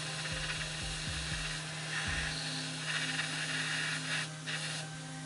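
Hot air soldering gun blowing on a laptop motherboard: a steady hiss of air over a constant low hum, with the air swelling a little now and then. The hot air is melting the solder under a new BIOS chip so that it can be seated.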